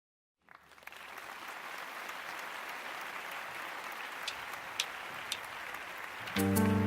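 Audience applause, steady after fading in from silence, with three sharp clicks about half a second apart near the end; a live band comes in just before the end.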